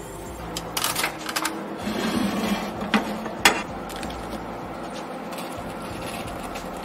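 Metal tongs and a small ceramic kiln being handled: a run of sharp clicks and knocks, the loudest about three and a half seconds in, over a low steady hum.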